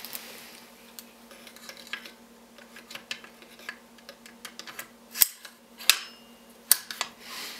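Bolt of a Bergara BPR17 .308 bolt-action rifle being slid into the action and worked: a run of small metallic clicks and scrapes, with three sharper clacks in the second half.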